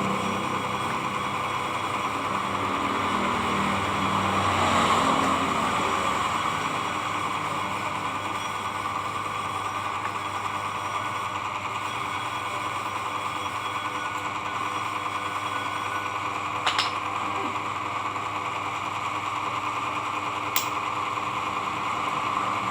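Small electric motor running steadily, with two sharp clicks late on.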